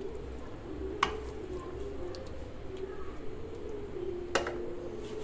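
A wooden spoon knocking twice against the dishes as food is spooned from a steel pan onto a ceramic plate, the second knock ringing briefly, over a steady low hum.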